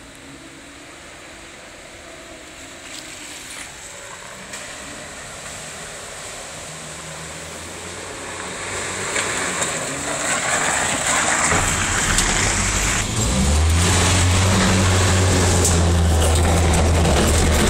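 Land Rover Series III engine running as the 4x4 drives over rough ground toward the microphone, growing steadily louder. For the last few seconds the engine is close and loud, a steady low drone over a hiss of tyre and ground noise.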